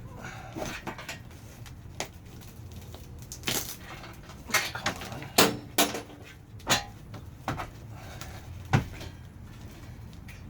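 Irregular metal clinks and knocks of hand tools working at a long screw in an RV's wooden ceiling, about a dozen sharp strikes, the loudest about five and a half and nine seconds in.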